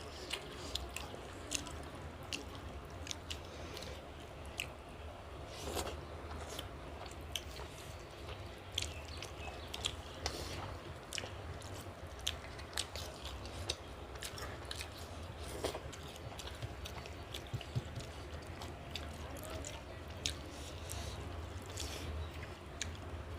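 Close-up chewing and eating of fried tilapia fish curry: frequent small wet clicks and smacks from mouths working the food, over a steady low hum.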